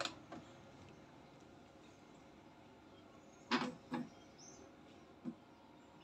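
Epson L3110 ink-tank printer powering on: a click of the power button, then a couple of short mechanical whirs from its print mechanism about three and a half seconds in as it runs its start-up cycle.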